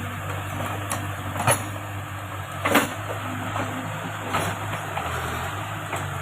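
Backhoe loader's diesel engine running steadily, with several sharp clanks, the loudest about three seconds in.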